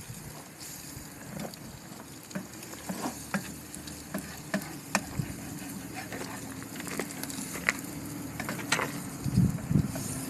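Food sizzling in a pan on a camping stove, with many small crackles and pops scattered over a steady frying hiss.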